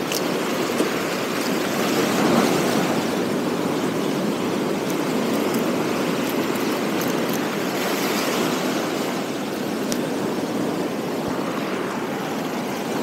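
Sea surf washing and foaming over shoreline rocks: a steady, even rush of water.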